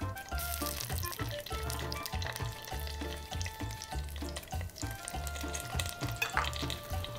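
Pieces of yellow bell pepper sizzling in hot olive oil as they are snipped into a stainless steel pot with kitchen shears, the start of a sauté. Background music with a steady beat plays under it.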